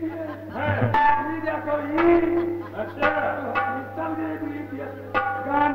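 Live stage music: hand drums struck in sharp strokes, roughly one a second, over steady held melodic tones, with a low steady hum underneath.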